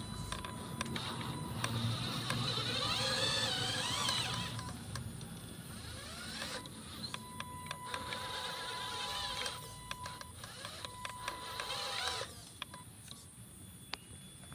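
Small electric motor and gearbox of a radio-controlled truck whining, its pitch wavering up and down as it speeds and slows, with scattered clicks.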